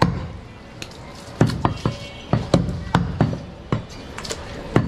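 Butcher's knife chopping goat meat against a wooden chopping block: about a dozen sharp, uneven chops, some coming in quick pairs.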